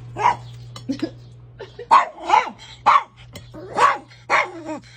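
A dog barking repeatedly, about eight short barks in irregular succession, over a steady low hum.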